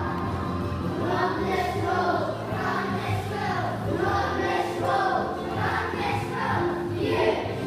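A group of young children singing a song together, with recorded music accompaniment underneath.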